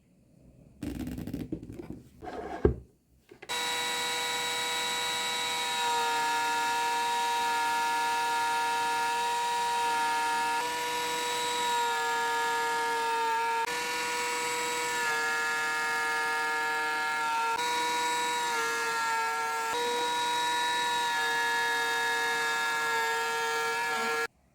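A few rustling noises and a sharp knock, then a high-speed electric wood router starts. It runs with a steady high whine for about twenty seconds, routing half-round pen grooves into a block of oak with a round-nose bit. The pitch shifts slightly every few seconds, and the router cuts off abruptly near the end.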